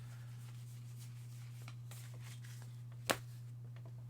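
Baseball trading cards being handled and slid through the hands, with one sharp click about three seconds in, over a steady low hum.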